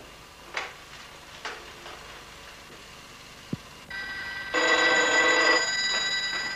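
Desk telephone ringing: a steady high ring tone starts about four seconds in and grows louder for about a second in the middle. A few soft knocks come before it.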